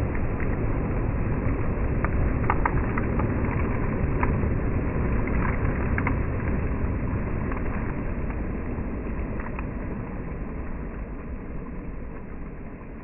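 Sea surf washing: a wave surges, loudest a few seconds in, then slowly recedes and fades, with a scatter of small clicks in the first half.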